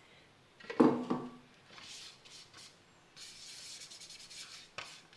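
Two metal clunks with a short ring about a second in as the stainless-steel mixer-grinder jar is handled and lifted off its base. Then a few seconds of scraping and rubbing from handling the jar and the ground eggshell powder, ending with a click.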